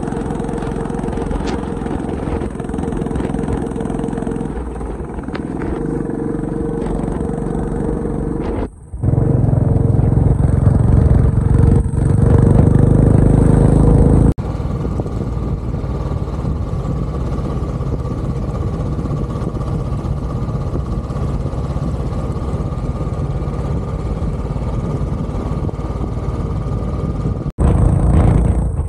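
Motorcycle engine running steadily on the move, in several clips spliced together with abrupt cuts. The stretch between about 9 and 14 seconds is louder and deeper.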